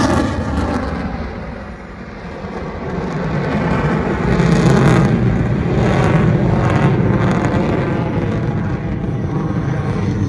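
F-35A Lightning II's single Pratt & Whitney F135 afterburning turbofan, loud jet noise as the fighter climbs away in afterburner. The noise dips about two seconds in, then swells back into a steady, rough rumble.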